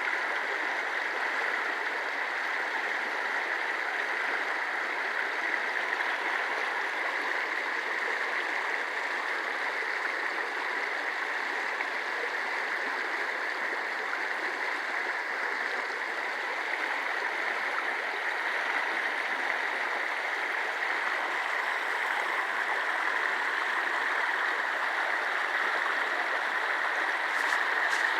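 Creek water flowing over rocks in a steady rush, running full after a night of heavy rain.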